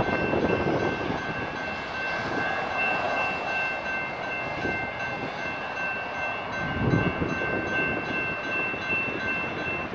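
General Signals electronic crossing bells ringing steadily as the crossing gates rise after the train has cleared, cutting off near the end. Beneath them runs a rushing noise with wind on the microphone, and a low gust about seven seconds in.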